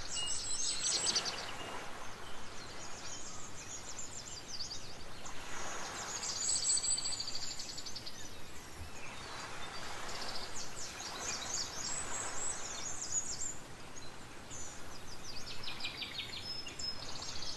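Birds chirping and trilling in short high-pitched phrases that come back about every five seconds, over a steady background hiss.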